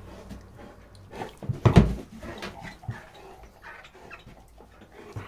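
A black schnauzer making short, low vocal sounds close to the microphone, with one louder short sound a little under two seconds in.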